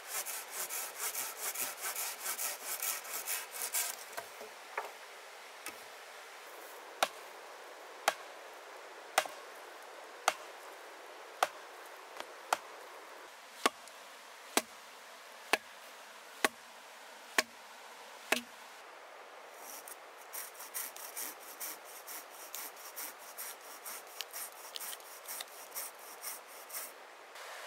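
Hand saw cutting wood in quick back-and-forth strokes, which stop about four seconds in. About a dozen sharp wooden knocks follow, roughly one a second. Then the sawing starts again about twenty seconds in.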